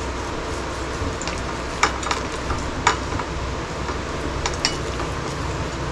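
A hand rubbing chilli powder and turmeric into small rohu fish on a plate: a soft, steady rubbing with a few sharp clicks.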